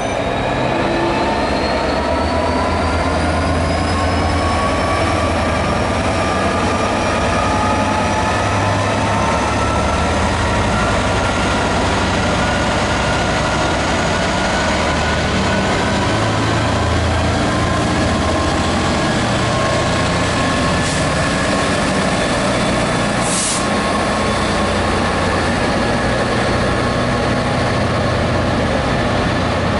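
Class 66 diesel-electric freight locomotive, its EMD two-stroke diesel under power as it pulls away with a container train. Its whine rises slowly as it gathers speed while the container wagons roll past, and two short high hisses come later on.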